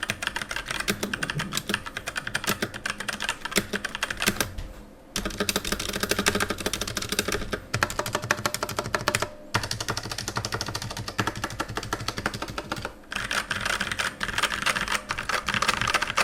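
Custom mechanical keyboard typed on fast and steadily: a dense run of keystroke clacks, broken by a few short pauses.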